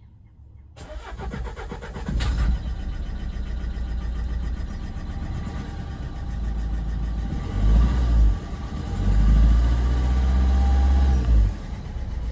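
Renault Megane 1.5 dCi four-cylinder diesel engine cranking and starting about a second in, then running with the revs raised briefly and then held up for a couple of seconds near the end. It is revving funny, the sign of a faulty injector making one cylinder misfire.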